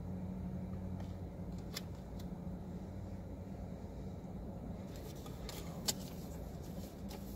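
Steady low hum with a few faint clicks and light rustling from small plastic camera accessories and packaging being handled.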